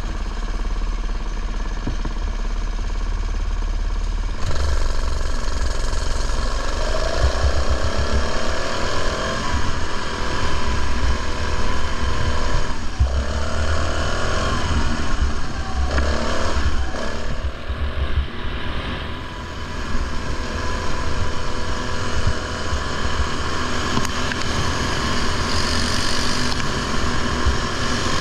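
Racing ride-on lawn mower's engine running hard, heard from on board the mower. It gets louder about four seconds in, and the engine note rises and falls several times through the lap.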